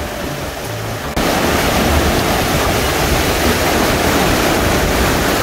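Background music for about a second, then a sudden cut to the loud, steady rush of the fast-flowing Harnoi River's water.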